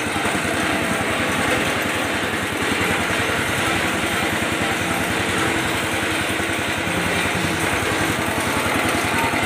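Small single-cylinder petrol engine running steadily, driving a sago grating and pressing machine while it grates starchy pulp that drops out of the chute.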